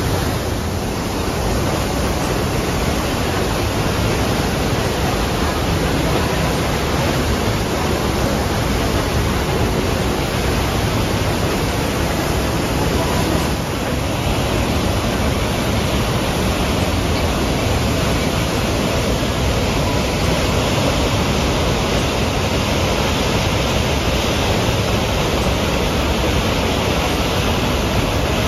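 Davis Falls (Patale Chhango) in heavy flow: a loud, steady rush of falling water from a large waterfall.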